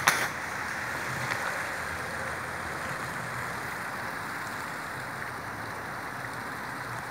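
Steady rushing of flowing water, with one sharp knock right at the start.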